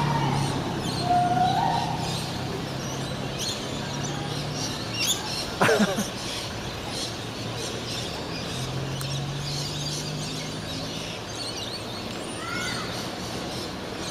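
A large flock of birds circling at dusk, with many short, high chirps overlapping throughout. A low hum runs underneath, and a sharp sweeping sound stands out about six seconds in.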